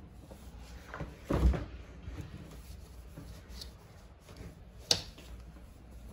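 Household knocks with no speech: a dull, heavy thump just over a second in and a single sharp click about five seconds in, of the kind a door or cupboard makes when shut.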